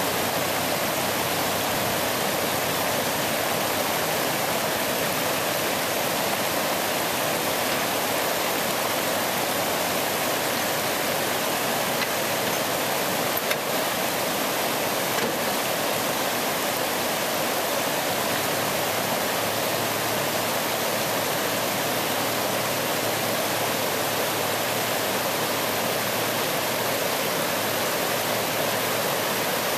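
River water rushing over rocks in shallow rapids, a steady, even rush that does not change.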